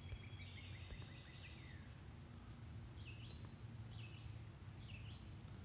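Quiet background: a low steady hum, with a few faint high chirps and glides, three short chirps about a second apart in the second half.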